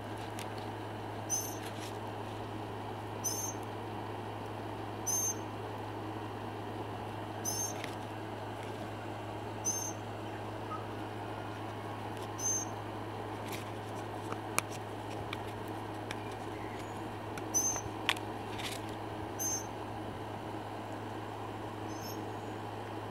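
A steady low hum with a faint hiss, over which a short high-pitched chirp repeats about every two seconds; a few faint clicks come in the second half.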